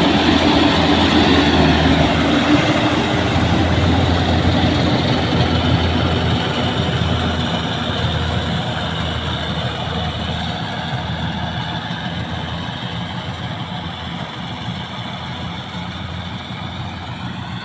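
Combine harvester's engine running steadily, slowly getting quieter over the stretch.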